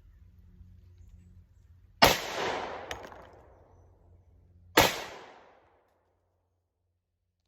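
Two 10mm pistol shots from a Glock 20 in an MCK chassis, a little under three seconds apart, each ringing out and dying away over about a second.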